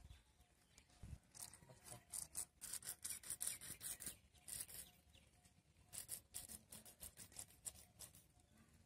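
Faint, irregular scratchy clicks and rubbing from a hand-squeezed plastic squeeze bottle, busiest in the middle few seconds.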